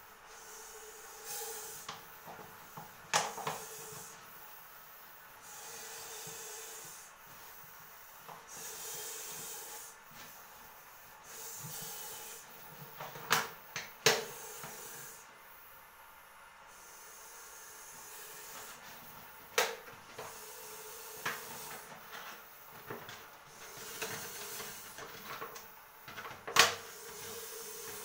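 Scattered sharp knocks and clatters of a clear plastic bottle and gloved hands moving on the floor as a snake is being coaxed into the bottle. Between the knocks come soft rushing noises about a second long.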